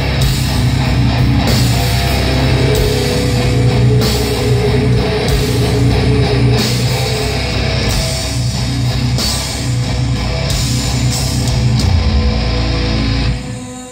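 Live heavy metal band playing loud, with distorted electric guitars, bass and drum kit. The song ends near the end, the sound dropping away abruptly.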